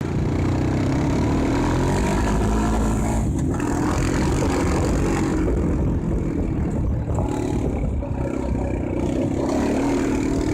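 A vehicle engine running, its pitch rising and falling as it revs, over a steady rushing noise.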